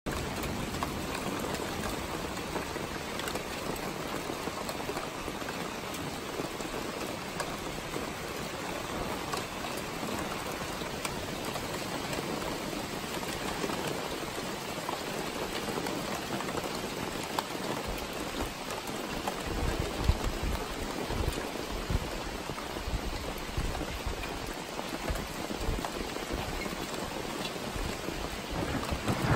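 Steady rain falling, a dense even hiss of drops. Low rumbling gusts come in and out through the second half.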